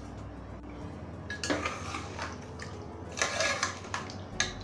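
A spoon stirring a thick curry in a metal pressure cooker, with several short clinks and scrapes against the pot's sides.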